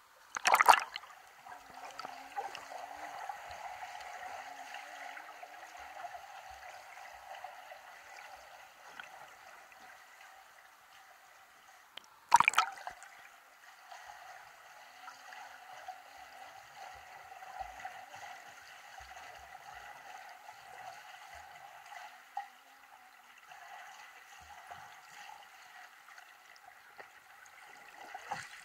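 Swimming-pool water heard through a submerged camera: a steady muffled rushing and gurgling from the swimmer's strokes and kicks. Two sudden loud sounds break in, about half a second in and about twelve seconds in.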